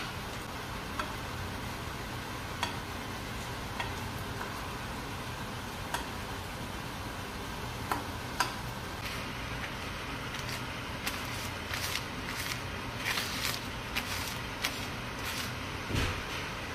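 A spoon stirring chopped tomatoes and onions in a pot of water, giving scattered knocks against the pot and small splashes that come thicker in the second half. A steady hum runs underneath.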